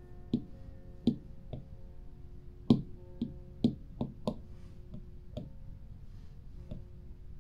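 Apple Pencil tip tapping on the iPad Pro's glass screen: about ten short, sharp taps at uneven intervals, the loudest a little under three seconds in. Soft background music plays underneath.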